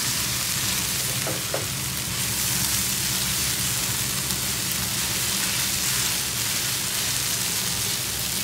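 Shredded chicken and vegetable filling sizzling in a non-stick frying pan over a high gas flame, stirred and scraped around with a silicone spatula. A low steady hum runs underneath.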